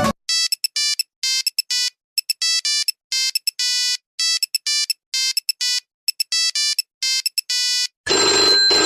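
Smartphone ringtone: a synthetic melody of short, clean beeping notes with silent gaps between them, the same phrase repeating about once a second. Near the end a different, fuller ringing sound cuts in.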